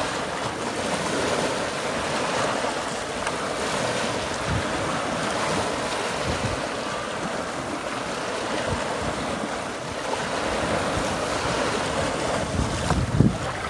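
Small surf waves washing onto a rocky shore and foaming around the rocks in a steady rush, with a louder splash near the end as a bigger wave breaks.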